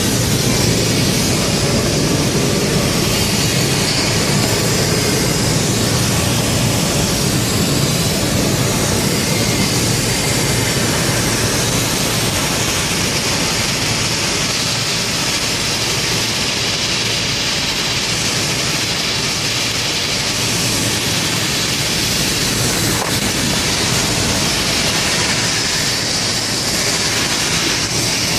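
Flux-cored arc welding on stainless steel: a steady, continuous arc crackle and hiss that runs without a break.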